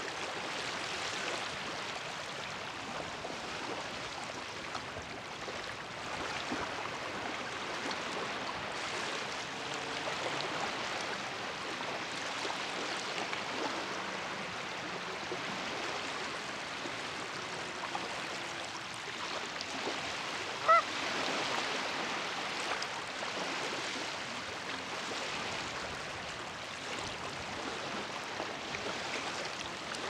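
Small lake waves lapping steadily on the shore, with a single short, loud goose honk about two-thirds of the way through.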